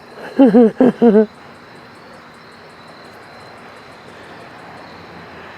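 Squeaker dog toy squeaking three times in quick succession as it is squeezed, each squeak rising and falling in pitch, in the first second; then only a steady low background.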